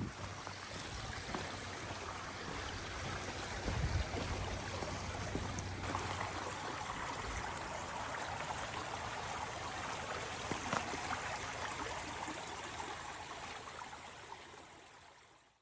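Steady rush of a flowing stream, with a few faint knocks, fading out near the end.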